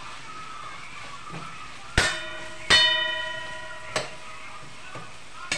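Metal spatula knocking and scraping against a metal kadhai while stirring, with two loud strikes about two seconds in that leave the pan ringing, and a few lighter knocks later. A low sizzle of frying food runs underneath.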